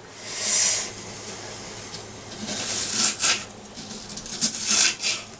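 Kitchen knife slicing through an onion on a wooden chopping board: a run of crisp cuts with the blade tapping the board, the loudest strokes about three seconds in and again near the end.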